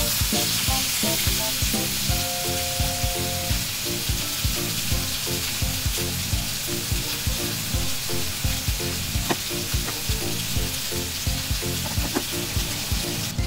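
Pork steaks sizzling in oil in a ridged cast-iron grill pan, a steady sizzle that cuts off suddenly near the end.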